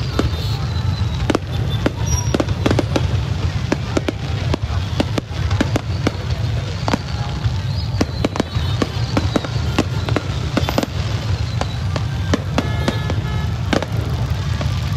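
Aerial fireworks shells bursting in quick, irregular succession: many sharp bangs over a steady low rumble.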